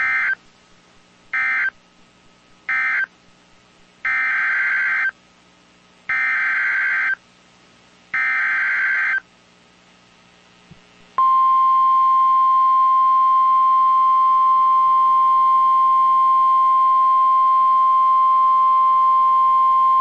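NOAA Weather Radio EAS/SAME digital data bursts, each a harsh warbling screech: three short end-of-message bursts, then three longer header bursts of about a second each, announcing a new severe thunderstorm warning. About eleven seconds in, the steady 1050 Hz Weather Radio warning alarm tone starts and holds.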